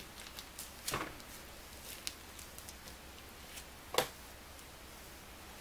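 Quiet handling noises as ground meat is spooned into a plastic ground-beef bag and packed down, with a few small knocks; the sharpest is about four seconds in.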